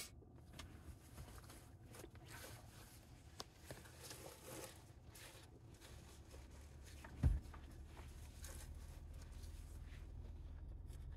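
Low steady rumble of a car cabin with the car running, with faint scattered clicks and one dull thump about seven seconds in.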